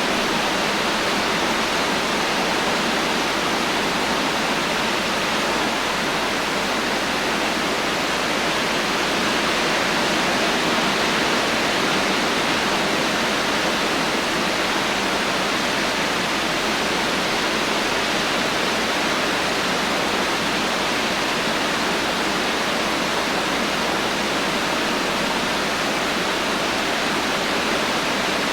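Heavy, steady rainfall making an even hiss with no thunder.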